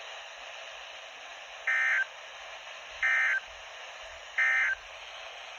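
Three short EAS end-of-message data bursts on NOAA Weather Radio, each a brief tone burst about a third of a second long with about a second of steady radio hiss between them. They mark the end of the coastal flood warning broadcast.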